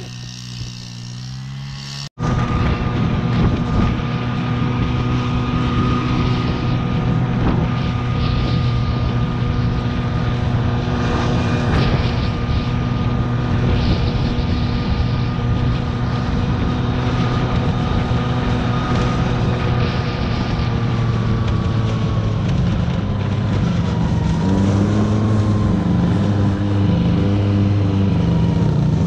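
Snowmobile engine running at a steady pace as it tows a sled, heard from the sled behind it, starting abruptly about two seconds in. Over the last few seconds its pitch wavers up and down as the throttle changes.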